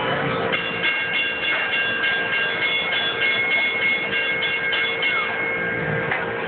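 Electronic railroad sound effects from a kiddie train ride and its crossing signal: a high, bell-like chime repeating several times a second, starting about half a second in and stopping about five seconds in, over a steady hum.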